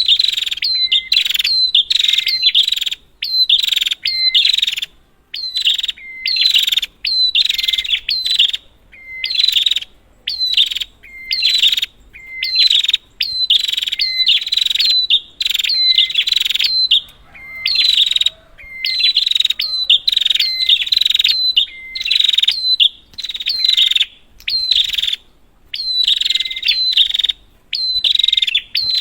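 Prinia (prenjak) calling incessantly: harsh, rapid, repeated chattering notes, roughly two a second in runs broken by brief pauses.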